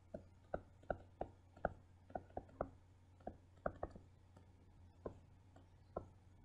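Stylus tapping and clicking on a tablet while words are handwritten: a string of faint, short clicks at uneven spacing, two or three each second.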